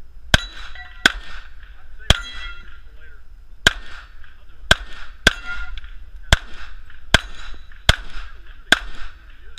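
Glock pistol fired about eleven times at uneven intervals, half a second to a second and a half apart, with a short metallic ring after several shots as rounds strike the steel plates of a star target.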